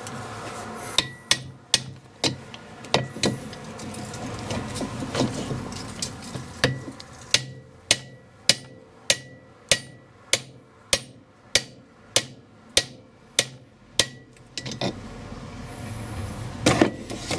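Hammer tapping a longer disc-wheel stud into an MGA rear hub: a run of sharp metallic taps, each with a short ring. The taps are scattered at first, then settle about six seconds in into a steady beat of roughly one and a half taps a second, which stops near fourteen seconds. The stud is slowly going in.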